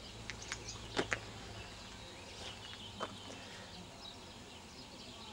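Birds chirping and singing, with a few sharp clicks about a second in and again near the middle, over a low steady rumble.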